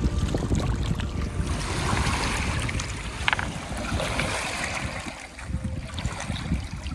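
Wind buffeting the microphone in gusts, with lake waves washing on the shore.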